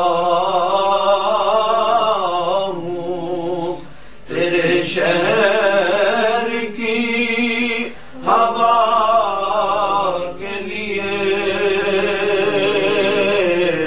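A man singing a naat solo in long, ornamented held notes with a wavering pitch. The notes break briefly for breaths about four and eight seconds in, over a steady low drone.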